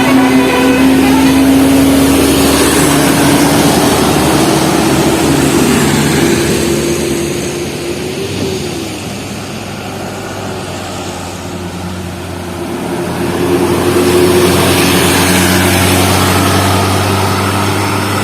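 Buses passing on a road: engines running with tyre and road noise, loud at first, easing off about halfway through and swelling again as another vehicle goes by. A steady held tone sounds over the first few seconds.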